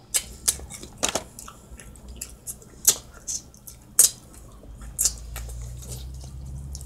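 Close-up eating sounds: a person chewing, with about half a dozen sharp, wet mouth smacks spread through.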